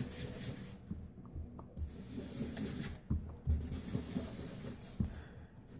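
Sponge dabbing and rubbing ink onto heat-embossed cardstock: an irregular soft scrubbing of sponge on paper, with a couple of light knocks about three and five seconds in.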